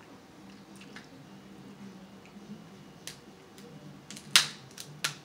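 Close-up eating of king crab legs: soft wet mouth and chewing sounds, then several sharp cracks as a crab leg's shell is snapped apart by hand. The loudest crack comes a little past four seconds in.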